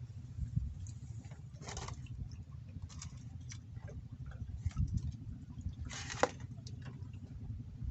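Water splashing and dripping in irregular bursts over a steady low rumble.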